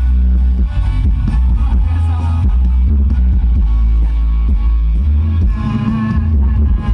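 Loud music played through a tall stack of outdoor sound-system speaker cabinets, with a heavy bass under a melody.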